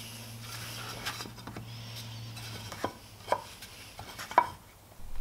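Brass wheel marking gauge knocking and scraping on a wooden strip as center marks are scribed at each layout line: a string of about six sharp wooden clicks with light scratching between, the loudest near the end.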